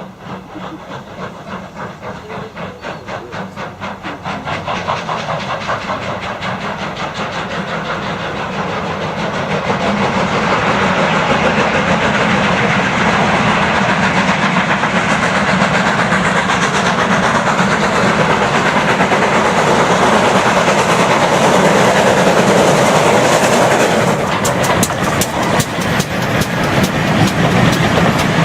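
Two steam locomotives double-heading a train, their exhaust beats chuffing in a quick regular rhythm that grows louder as the train approaches and passes, building into a loud rumble. Near the end the wheels clatter sharply over rail joints.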